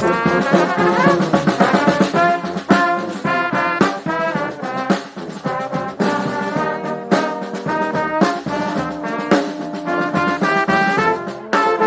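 Brass band playing, with trombones and trumpets carrying the melody and chords over regular drum hits.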